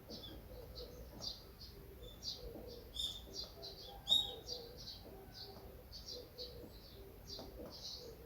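Small birds chirping: a steady run of short, high chirps, about three a second, with two louder, sharper calls near the middle.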